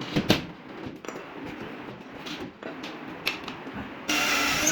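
Scattered knocks and clicks of work on wood and chipboard panels, then a power tool starting up about four seconds in and running steadily.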